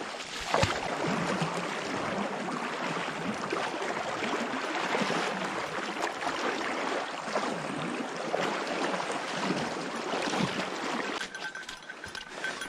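Legs wading through shallow creek water, a steady splashing and sloshing. It eases about a second before the end as the wader steps out onto a muddy bank.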